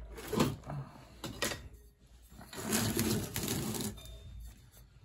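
Tools and small metal parts being moved around on a wooden workbench: a few separate knocks, then about a second of rattling clatter near the middle.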